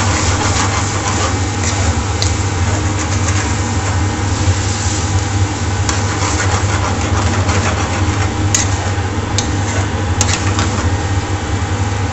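Steady loud hum of kitchen ventilation over curry sauce sizzling in a frying pan on a gas burner. A metal ladle stirring the sauce clicks against the pan a few times.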